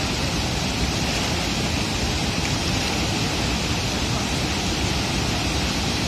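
Steady rush of a wide waterfall in full flow, the Bogatha falls pouring over a broad rock ledge into the pool below.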